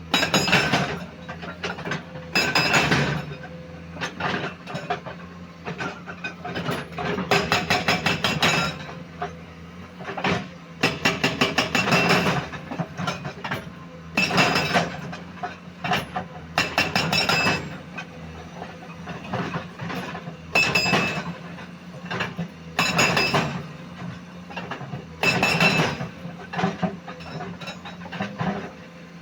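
Komatsu PC210 hydraulic excavator with its diesel engine running steadily. Over it come about a dozen irregular loud bursts of metallic clanking and rattling, each lasting a second or two, from the machine working.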